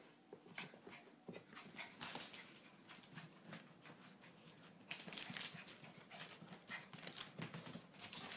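A dog's quick breathy panting and scuffling while play-fighting with a cat, heard as a string of short bursts.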